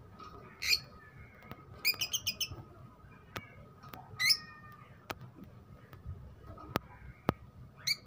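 Rosy-faced lovebirds in a cage giving short, sharp squawking calls: one at under a second in, a quick run of about five chirps around two seconds, another squawk around four seconds and one more at the end. A few sharp clicks fall between the calls.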